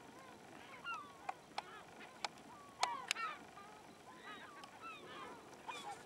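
Waterfowl calling: many short, honking calls overlapping one another, with several sharp clicks between about one and three seconds in.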